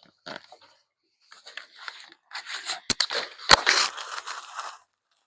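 Cutters snipping zip ties off a new e-bike's packaging: two sharp snips about half a second apart, amid rustling and crackling of the wrapping.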